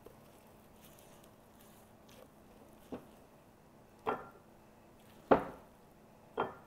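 Silicone spatula scooping soft almond-paste filling out of a glass mixing bowl into a ceramic ramekin, with four sharp knocks of the spatula against the dishes, about one a second, the fourth-last loudest.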